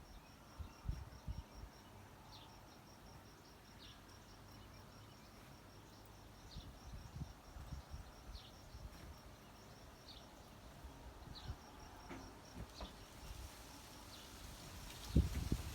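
Faint outdoor ambience: a high, rapid pulsing chirp, like an insect's, runs on steadily while a bird repeats a short down-slurred call note every second or two. Low rumbles sit underneath, with a louder low thump just before the end.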